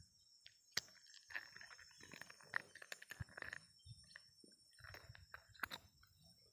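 Near silence, with faint scattered clicks and a few soft rustles.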